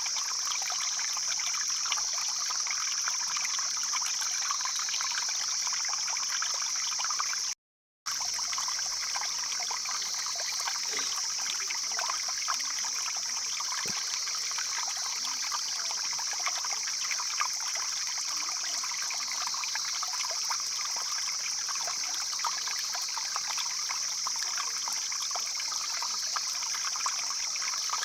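Stream water flowing and trickling steadily, with a constant high-pitched hiss over it. The sound cuts out completely for about half a second around seven and a half seconds in.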